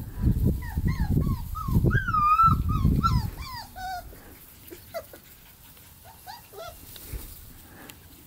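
Border collie puppies whimpering and yipping as they play, a run of short, high, wavering cries over the first four seconds and a few more about midway. A loud low rumble fills the first three seconds.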